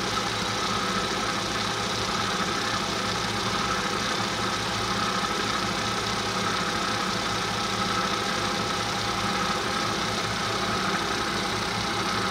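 Bridgeport J-Series milling machine running steadily: the 1 hp three-phase spindle motor and belt head turn with the quill power feed engaged and lowering the quill. It gives a steady hum with a thin whine above it.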